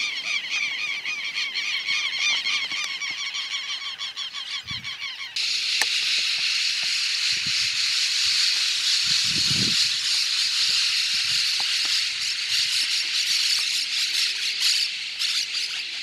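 Outdoor marsh ambience: a dense chorus of rapid, repeated high calls from wild animals. About five seconds in, it switches abruptly to a steady, even, high-pitched chorus.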